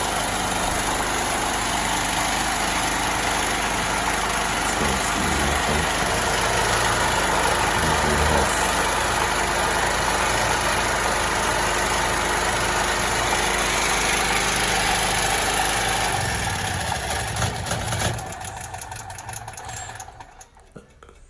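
Portable generator engine running steadily; its faulty ignition switch cannot stop it. Near the end it is shut off with the choke, stumbling and dying out.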